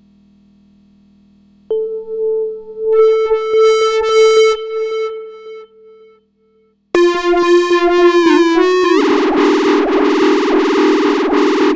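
Synthesizer sounds with heavy distortion and effects. A held, buzzy tone starts about two seconds in and fades out. After a short pause a loud, bright tone wobbles and dips in pitch, then breaks into a harsh, distorted noise.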